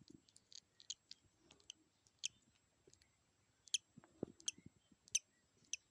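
Budgerigar chick hatching: faint, irregular tiny clicks and short high-pitched peeps as it works its way out of the eggshell.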